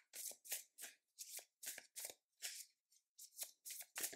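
A deck of tarot cards being shuffled by hand: a run of short, soft papery swishes, about two or three a second, as the cards slide from one hand into the other.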